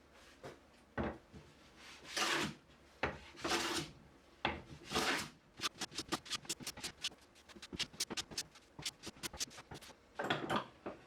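Hand tool working wood: a few long scraping strokes, then a quick run of short rasping strokes, about six a second, then another long stroke near the end.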